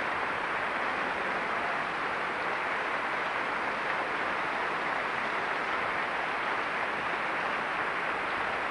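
Sustained applause from a large concert audience, a dense, even clapping that holds steady throughout.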